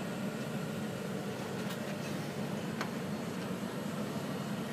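Vintage passenger carriages of a steam-hauled train rolling past on the rails: a steady low rumble with a couple of faint clicks.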